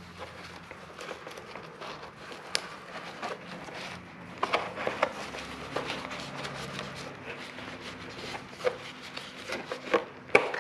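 Handling noise from a Trend Airshield Pro's fabric hood and plastic headgear as its elastic edge is worked around the visor rim: fabric rubbing with scattered light plastic clicks and knocks, the loudest just before the end.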